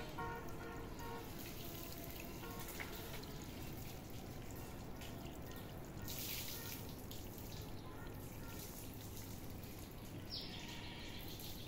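Steady outdoor background noise, with a few short high tones in the first couple of seconds and two brief hissing sounds, one about six seconds in and one near the end.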